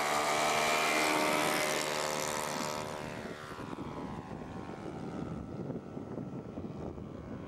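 Radio-controlled model airplane's engine and propeller at full throttle on the take-off run, rising in pitch, then falling in pitch and fading from about two seconds in as the plane climbs away.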